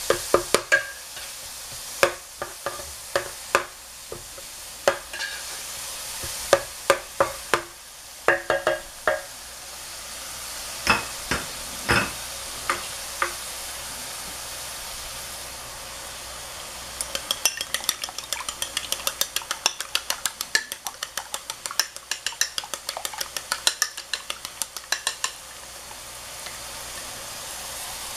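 Diced onion, carrot and ground meat sizzling in an electric pot, with a steady frying hiss. Scattered clicks of a stirring utensil against the pan in the first half, then a run of quick, even clicking, about four a second, for several seconds in the second half.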